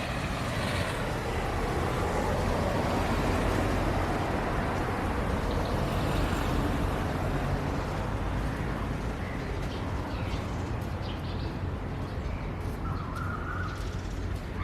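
Steady outdoor noise of rain with a deep rumble of road traffic that swells over the first few seconds and eases off. From about ten seconds in, scattered ticks and short bird calls come through, the clearest near the end.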